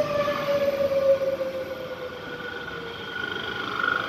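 SBB double-deck InterCity train rolling in along the platform as it slows, with wheel and rail rumble and a whine that falls in pitch. About halfway through, a higher, steadier squeal takes over.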